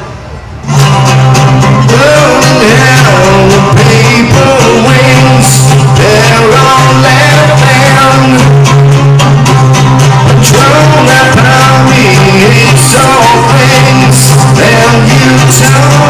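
Live rock performance over a festival PA: a man singing with vibrato over an amplified guitar, with a low note held underneath. The music comes in at full loudness about a second in and stays loud.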